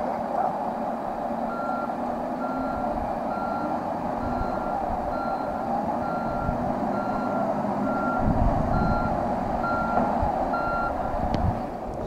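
Kawasaki wheel loader's reverse alarm beeping about once a second as it backs away from the dump truck, over the steady running of its diesel engine.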